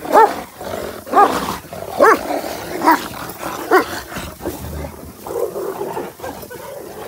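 Shepherd dogs in a fight: five loud barks, about one a second, then rougher growling.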